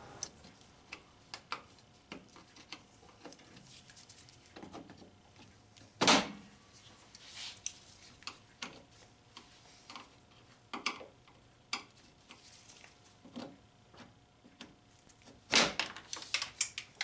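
Plastic push-pin clips being pried up with a pocket screwdriver and pulled out with clip-removal pliers: scattered clicks and taps of metal tools on plastic. There is a louder knock about six seconds in and a quick cluster of clicks near the end.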